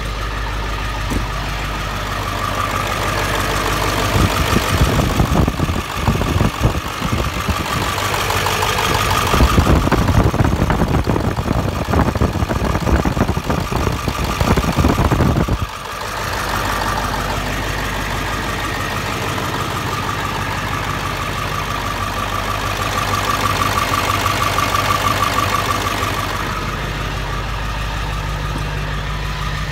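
Ford 7.3 Powerstroke V8 turbodiesel idling steadily. From about four seconds in it is louder and rougher, and it drops back suddenly about sixteen seconds in.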